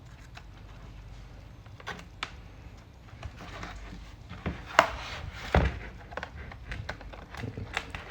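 A thin blade prying at the seam of a MacBook Pro's aluminium bottom case: scattered small clicks, taps and scrapes, with two louder sharp clicks about five seconds in and again half a second later.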